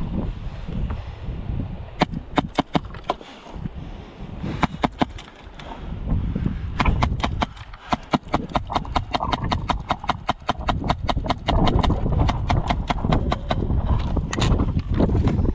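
Airsoft rifles firing: a few single shots, then long strings of rapid shots, several a second, from about seven seconds in, with more near the end, over a low rumble.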